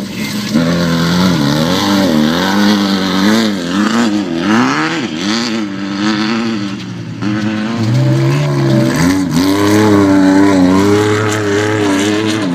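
Desert off-road race vehicle engines, a buggy and a race truck, revving hard with the pitch swinging up and down over and over as the throttle is worked. A second, deeper engine joins about eight seconds in.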